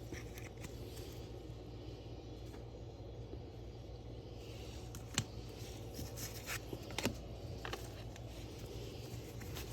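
Quiet low hum of the room with a few faint sharp clicks and scrapes, typical of trading cards and pack wrappers being handled on a table.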